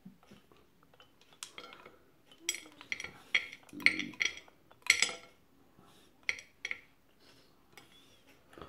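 Blender jar held upside down and knocked against a plate as ground nut paste is shaken out of it: a string of short clinks and knocks, thickest between about two and five seconds in.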